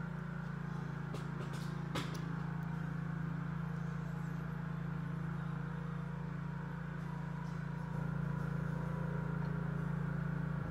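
A steady low hum, with a sharp click about two seconds in; it gets slightly louder about eight seconds in.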